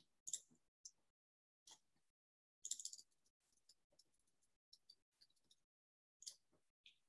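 Near silence with a few faint, short computer mouse clicks: a couple at the start, one near two seconds in, a quick run of clicks near three seconds, and two more near the end.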